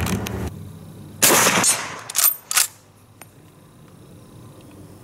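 A single rifle shot about a second in, followed by two quick, sharp metallic clacks.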